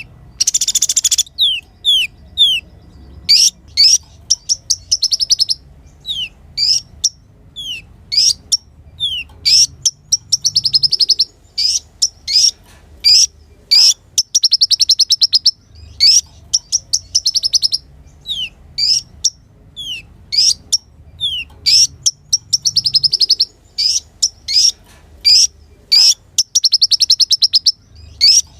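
Kolibri ninja sunbird singing: a quick string of short, high, downslurred chips broken every few seconds by a fast, buzzy trill lasting about a second.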